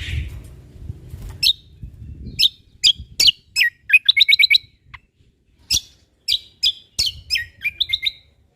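Cucak kombo (kecial kombok) singing: a string of sharp chirps broken by quick trills of five or six rapid notes. A low rumble sits under the song for the first couple of seconds.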